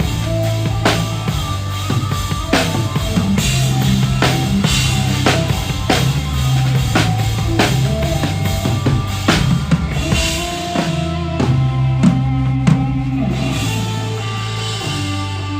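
A live band playing a song, with the drum kit keeping a steady beat of kick and snare hits over bass notes and held chords. The drums thin out near the end, leaving the held notes.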